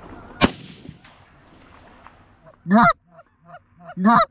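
A single sharp crack about half a second in, then Canada goose honking: two loud, close honks about a second and a half apart near the end, with a run of quicker, fainter honks between them.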